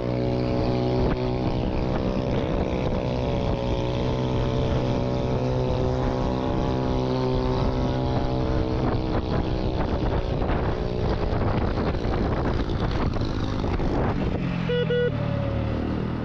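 Small motorbike engine running at a steady speed while riding, with wind on the microphone; its pitch drops near the end as the bike slows.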